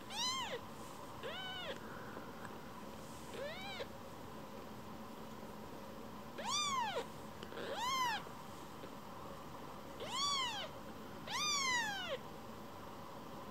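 A very young kitten mewing seven times: short, high cries that rise and fall in pitch, the last four louder than the first three.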